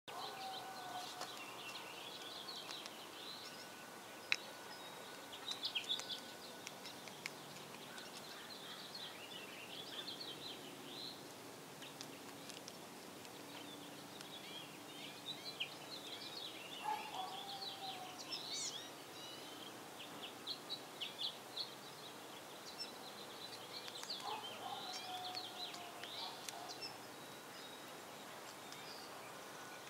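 Small birds chirping and twittering in the background, with a few lower, falling calls and a sharp tap about four seconds in.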